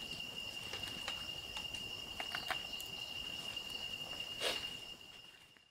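A cricket trilling on one steady high note, with scattered light clicks of plates and utensils and a brief rustle about four and a half seconds in; the sound fades out near the end.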